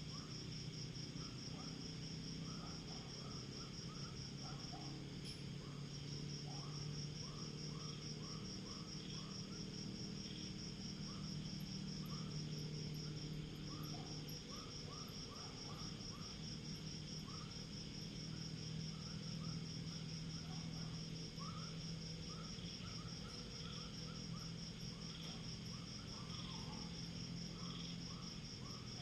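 Night insect chorus: a steady, fast-pulsing high cricket trill, with many short, lower-pitched chirps scattered throughout and a low steady hum underneath.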